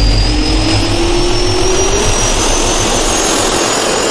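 Jet turbine engine sound effect spooling up: a steady rushing noise under a whine that climbs slowly in pitch.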